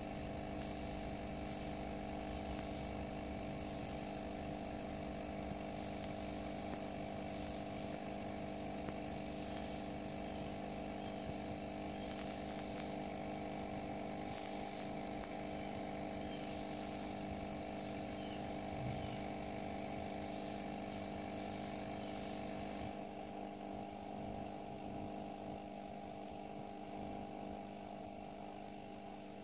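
A steady low mechanical hum, with short bursts of high-pitched insect chirping that stop about two-thirds of the way through.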